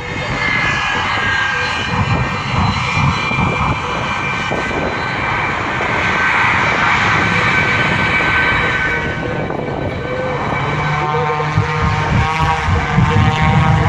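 Aerobatic propeller airplane's engine running hard over the field, its pitch sliding up and down as the plane manoeuvres and passes.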